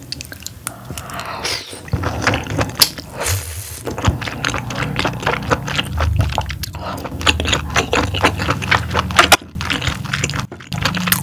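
Close-miked chewing of a steamed scallop dipped in whipped cream: rapid wet mouth clicks and smacks, starting about two seconds in and running on without pause.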